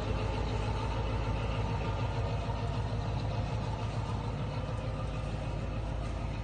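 An engine idling steadily, a low rumble that does not change.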